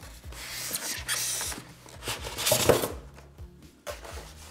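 Styrofoam packing pieces rubbing and scraping against cardboard and foam as they are lifted off a boxed iMac. The scraping comes in uneven strokes, loudest about a second in and again near three seconds.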